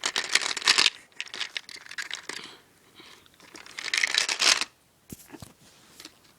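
Toy gumball machine being handled and turned: plastic scraping, rattling and clicking in three bursts, the first near the start and the last about four seconds in.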